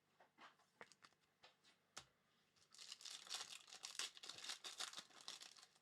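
A trading-card pack wrapper being torn open and crinkled: a few faint clicks, then about three seconds of dense crinkling and tearing.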